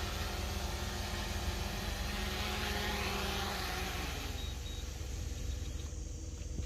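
RC airplane's brushless electric motor running with a steady whine, over heavy wind rumble on the microphone; the sound thins out over the last couple of seconds.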